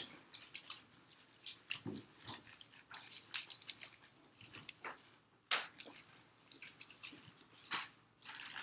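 Handling noise at a desk: scattered small clicks, taps and rustles at irregular spacing, with one sharper knock about five and a half seconds in.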